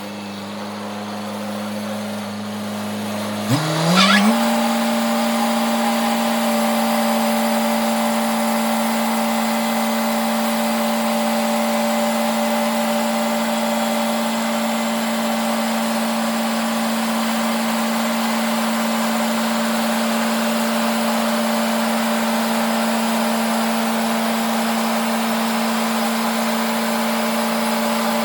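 Sawmill machinery running with a steady hum; about four seconds in it speeds up quickly to a higher steady pitch, with a brief sharp noise as it does, and then runs on evenly.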